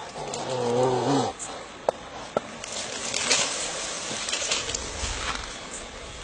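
An animal's call with a wavering pitch for about a second, then two sharp clicks and a few seconds of hissing noise.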